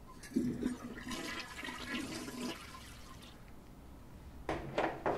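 A toilet flushing: a rush of water for about two seconds, with a low steady tone under it. A few short sharp sounds follow near the end.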